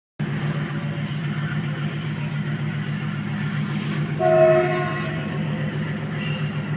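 A steady, pulsing engine drone, with a horn sounding once, briefly, about four seconds in.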